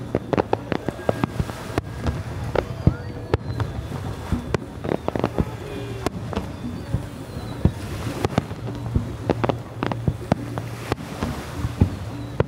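Fireworks going off in many sharp, irregular bangs and crackles, with music playing underneath.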